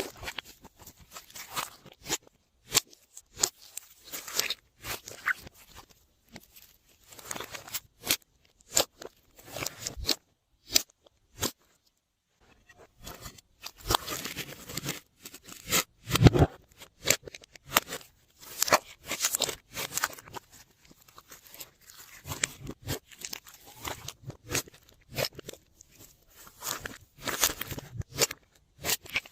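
Glossy slime being kneaded and pressed by hand, giving irregular crackling clicks and squishes.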